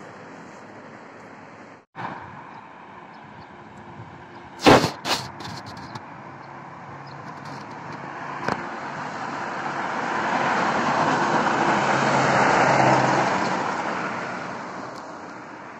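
A motor vehicle driving past on the road: tyre and engine noise swell over several seconds, peak, then fade away. Earlier, two sharp knocks half a second apart over a faint steady street hiss.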